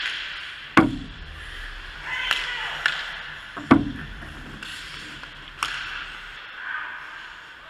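Ice hockey play: sharp clacks of sticks and puck, with two loud, deeper knocks about a second in and near four seconds and lighter clacks between, over the scrape of skates on the ice.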